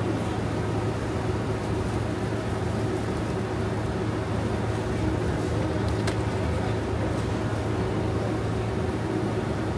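Steady supermarket background hum, the low drone of store machinery such as chiller cabinets and ventilation, with a faint wash of shop noise. A single short click about six seconds in.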